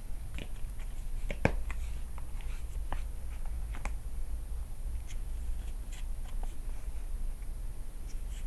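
Hands turning the stiff cardboard pages of a Blu-ray disc book: scattered light clicks, taps and rustles of paperboard, the sharpest about one and a half seconds in.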